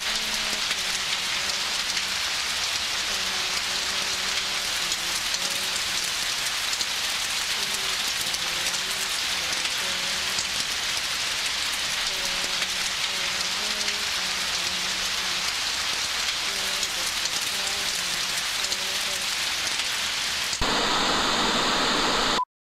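A steady hiss with faint, wavering low tones beneath it. The hiss grows slightly louder near the end, then cuts off abruptly.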